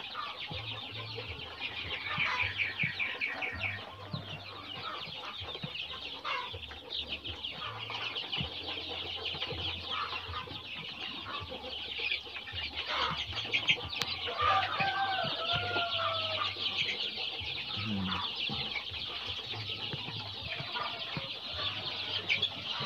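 A large flock of about 400 chicks, around 40 days old, peeping continuously, with many high cheeps overlapping. One longer, wavering call stands out about two thirds of the way through.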